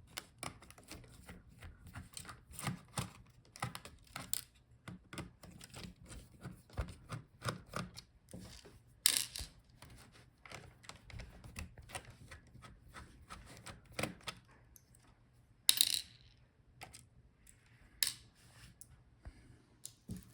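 Small irregular clicks and taps of tools and plastic parts being handled while a laptop is taken apart, with a few louder knocks about nine, sixteen and eighteen seconds in.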